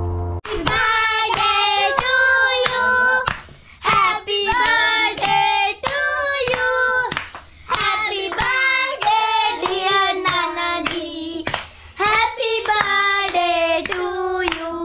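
Children singing a song together, with hands clapping along about twice a second.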